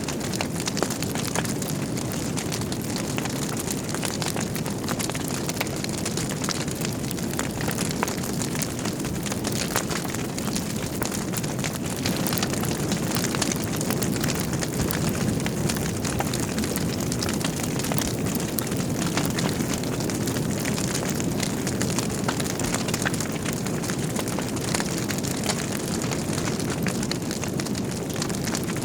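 Wood fire burning in a fireplace: a steady low rush of flame with frequent small crackles and pops from the burning logs.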